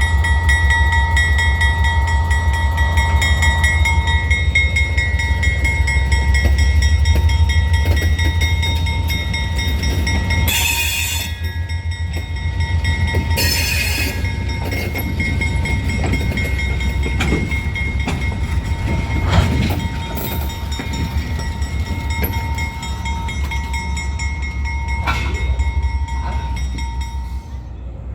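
Freight train with EMD SD40-2 diesel locomotives running: a deep, steady engine rumble under a constant high whine. Two short hissing bursts come about 11 and 14 seconds in.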